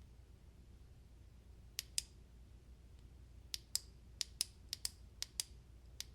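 Push-button switch of a Foursevens Quark MKIII flashlight being worked with quick soft pushes, a series of sharp clicks in pairs as each push goes down and comes back up. There are about five or six pairs, starting about two seconds in. It is a run of soft pushes meant to put the light into programming mode.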